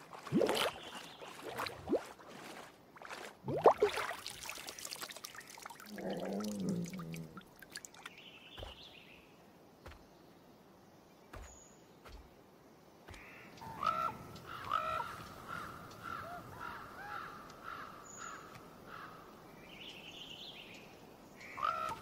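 Brown bear lapping and splashing water as it drinks, with the loudest splash about four seconds in. In the second half, ravens call over and over with croaking calls.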